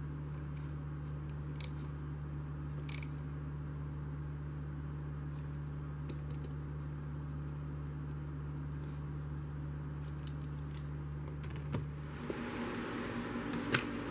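A steady low machine hum with a few light clicks and taps. About twelve seconds in it switches to a higher hum with a hiss, and there is one sharp tap near the end.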